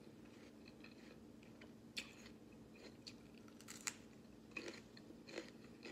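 Crunching and chewing of raw green bell pepper: a handful of sharp, crisp crunches spread over a few seconds, over a faint steady hum.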